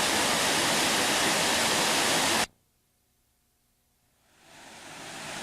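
Waterfall rushing steadily, a loud even roar of falling water, which cuts off abruptly about halfway through; after a moment of near silence, rushing water fades back in and grows louder.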